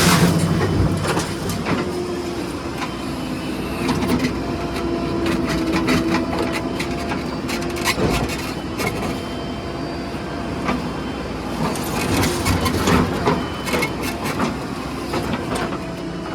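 Diesel engine of a JCB 3DX backhoe loader running steadily at work, with scattered knocks and clatter as it digs and loads mud.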